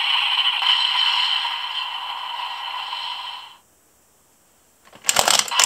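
Electronic sound effect from the speaker of a DX Revice Driver toy belt with the Twin Chimera Vistamp fitted: a steady hissing noise with two held tones that fades and cuts out after about three and a half seconds. After a second of silence, a short burst of sharp plastic clicks and clatter near the end.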